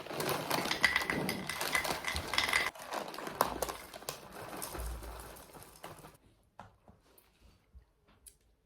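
Dry breakfast cereal and a spoon rattling and clinking in a bowl, a dense clatter of small clicks that stops about six seconds in.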